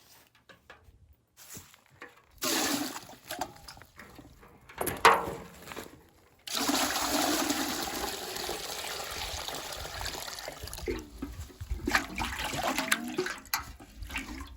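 Water pouring with a steady rushing sound for several seconds, starting about six and a half seconds in, after a few shorter splashes and a sharp knock about five seconds in.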